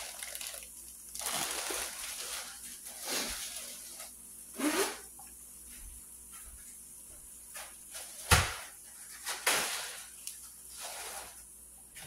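Plastic bag of flour tortillas crinkling and rustling in scattered bursts as it is shaken and handled, with a single sharp knock about eight seconds in.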